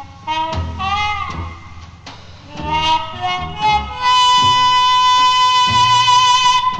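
Small-group jazz recording: a lead instrument plays short phrases with bent, gliding notes over low bass notes, then holds one long, loud note from about four seconds in.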